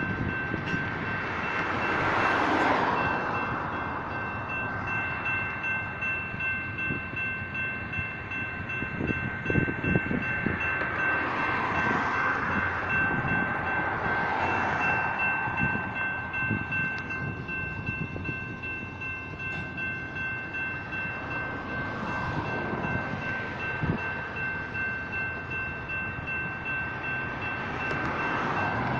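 Double-stack intermodal freight train rolling through a grade crossing: a steady rumble of wheels on rail with scattered clicks, the noise swelling and easing every few seconds as the cars go by. The crossing signals' electronic bells ring steadily over it.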